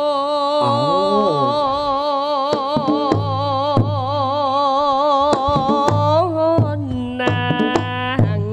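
Music: a singer holds long notes with a strong, wavering vibrato over repeated hand-drum strokes; near the end the voice gives way to a few steady higher notes.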